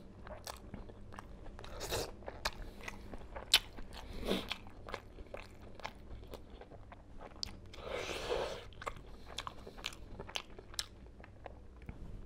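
Close-miked eating: a man chewing and biting food with many sharp wet mouth clicks and smacks, and a few longer, louder smacking or crunching bites.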